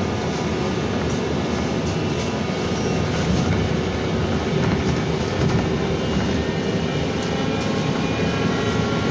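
Cabin noise of a moving BKM-32100D trolleybus: the electric traction drive's steady whine over rolling and road noise.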